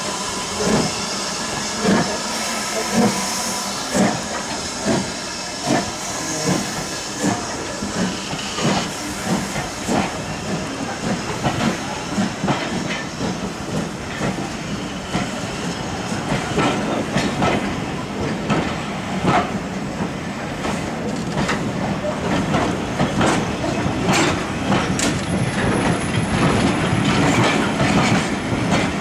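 BR Standard Class 4MT 2-6-4T steam tank locomotive 80104 pulling its train away close by, hissing steam with sharp beats about once a second at first. Its coaches then roll past with wheels clicking over the rail joints, the clicks coming closer together and louder toward the end as the train gathers speed.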